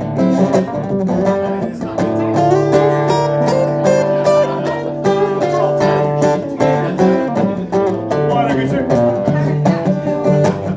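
Live acoustic guitar strummed with a steady rhythm, playing an instrumental passage between sung verses of a blues song.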